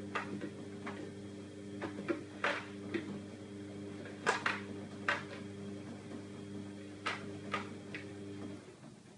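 Irregular sharp taps of a cat's paws and claws against the glass door of a running Baumatic front-loading washing machine, over the machine's steady motor hum, which stops near the end.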